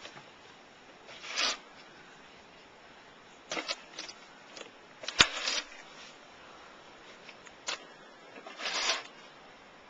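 Snow shovel scraping and throwing snow in short, separate strokes, about five in all, with a sharp knock about halfway through.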